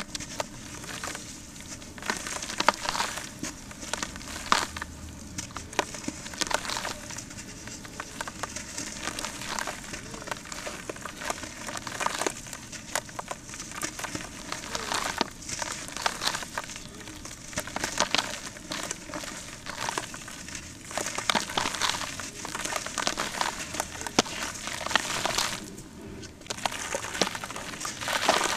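Lumps of reused set cement crumbled and crushed by hand: dense, irregular gritty crunching and crackling as the chunks break apart, with a brief pause near the end.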